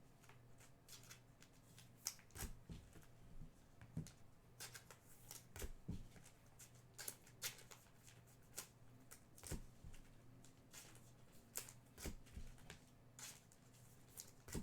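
Chrome soccer trading cards being handled and flipped through by hand: soft, irregular rustles and flicks, over a faint steady hum.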